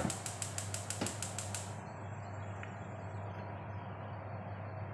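Wooden spatula stirring a thick corn and egg mixture in a frying pan: a knock against the pan at the start, then a quick even run of light clicks for about two seconds, then soft stirring and simmering over a steady low hum.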